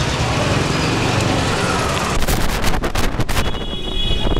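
Busy street noise, traffic and market bustle, for the first half; from about halfway it gives way to a run of sharp, irregular knocks and clacks, with a thin high steady tone near the end.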